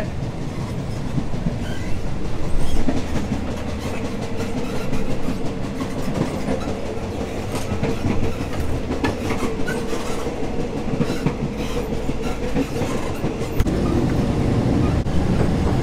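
Moving passenger sleeper train heard from inside the carriage: a steady rumble of the wheels on the track with scattered clicks and a steady hum running through it.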